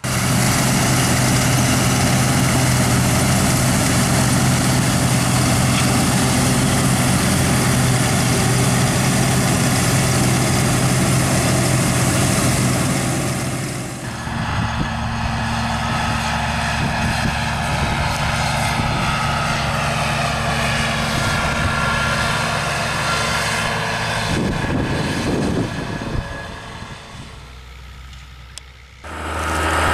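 Diesel tractor engines running loud and steady. About halfway through the sound changes to a different engine with a high whine. It dies down near the end before another engine comes in.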